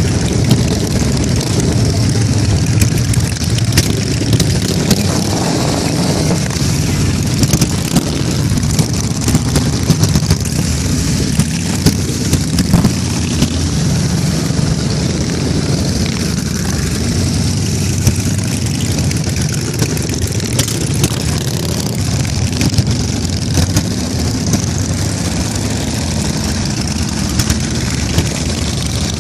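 A large pack of motorcycles, Harley-Davidson V-twin cruisers and touring bikes among them, riding past close by in a steady stream: a loud, continuous rumble of many engines, with brief louder surges as individual bikes pass and rev.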